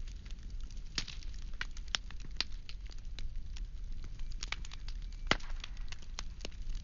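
Firewood burning with irregular sharp crackles and pops, one louder pop about five seconds in, over a faint low hum.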